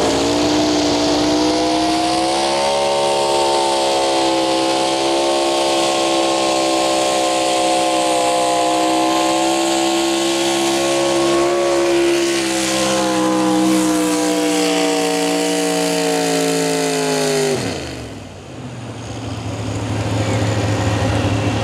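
Pro Stock 4x4 pulling truck's engine at full throttle pulling the sled. The revs climb over the first two seconds and hold high and fairly steady for about fifteen seconds. Near the end the note falls off sharply as the throttle is released, settling to a low steady run.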